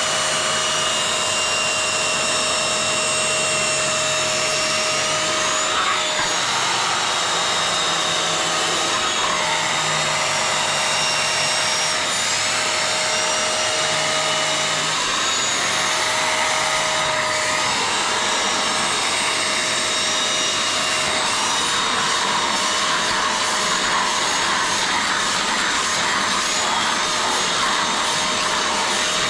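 Wet vacuum running steadily as its nozzle is worked over an Alcantara car seat, drawing out foam and dirt, the motor's whine shifting slightly in pitch now and then.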